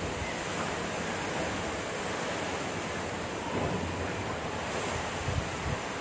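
Strong wind rushing through tree foliage with rain: a steady hiss. Low gusts buffet the microphone about three and a half seconds in and twice more near the end.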